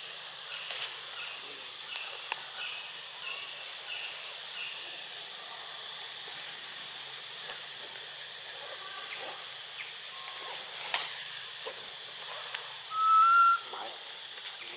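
Tropical forest ambience: steady insect buzzing, with a run of short chirps repeating about once or twice a second in the first few seconds, a few sharp clicks, and one brief loud whistled call about thirteen seconds in.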